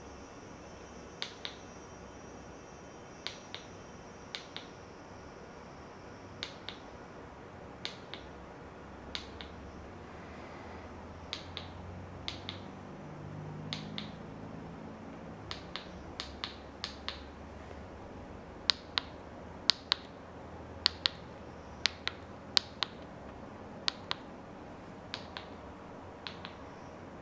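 Irregular sharp plastic clicks, many in quick pairs, from remote-control buttons being pressed to step through a media player's menu; they get louder in the second half.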